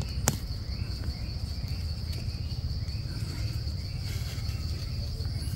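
Insects trilling steadily in forest undergrowth, one unbroken high-pitched buzz, with a sharp snap or click just after the start.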